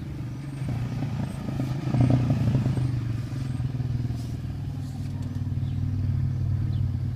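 An engine running steadily with a low, even hum, swelling a little about two seconds in.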